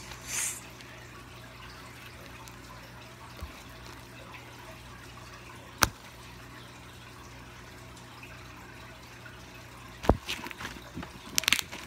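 Pink slime being stretched and worked by hand, giving off a few sharp pops as trapped air bubbles burst: one about six seconds in, one about ten seconds in, and a quick cluster of small pops and clicks near the end, over a faint steady low hum.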